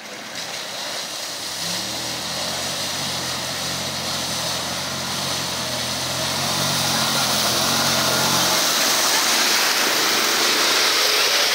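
Side-by-side UTV engine running steadily as the vehicle drives through a fast, shallow creek, over the steady rush of the flowing water. The water noise swells as the vehicle pushes a bow wave through, and the engine hum cuts out about eight and a half seconds in, leaving only the rushing creek.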